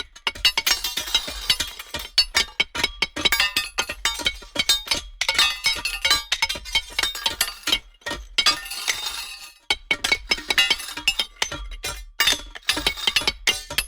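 A metal object banging repeatedly against rocks: rapid, clustered clinks and knocks that ring briefly, in runs broken by short pauses.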